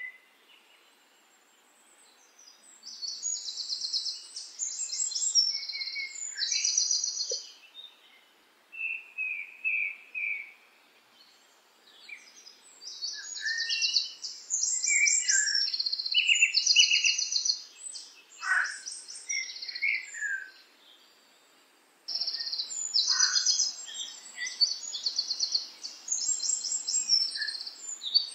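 Songbirds singing: bouts of fast, high trilled phrases lasting a few seconds each, with shorter, lower whistled notes and quick downward sweeps between them.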